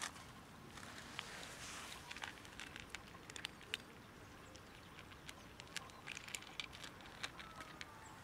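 Two cats crunching dry kibble: faint, irregular crisp crunches and clicks as they chew.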